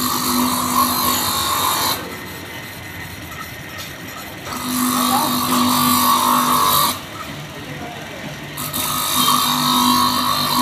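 Valve of a motorcycle cylinder head being hand-lapped into its seat with emery grinding compound. The stick is spun hard between the palms, giving a gritty grinding rasp with a steady hum in it, in three spells of about two seconds with quieter pauses between.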